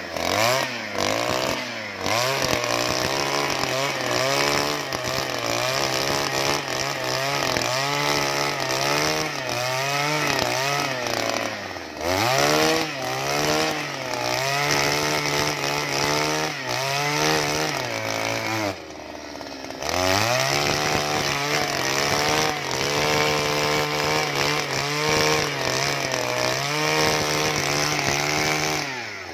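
Two-stroke petrol earth auger running at high revs while boring into soil. Its pitch sags and recovers under load. The engine drops to idle for about a second midway, then revs back up.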